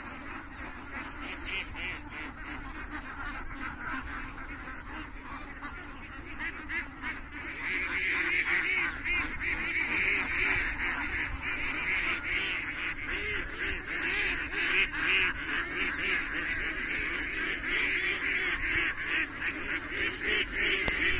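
A large flock of domestic ducks quacking all at once in a dense, continuous chorus, growing louder about seven seconds in.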